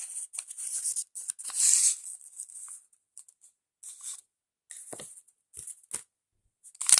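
Small plastic toy packaging being torn open and handled, in short rustling bursts with pauses. The longest tear is about a second and a half in, and a dense crinkling starts near the end.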